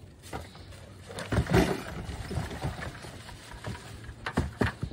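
Black plastic garbage bags rustling and crinkling as they are handled and pulled from a trash can, with a few short knocks a little past four seconds in.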